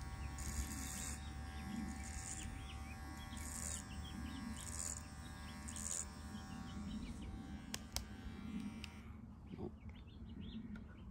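Nova electric hair clipper with a number 2 guard running steadily through the haircut, with two clicks just before it stops about nine seconds in. Birds chirp.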